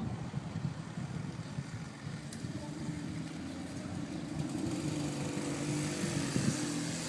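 Mobylette moped's small two-stroke engine running: its steady note comes in a couple of seconds in and slowly grows louder.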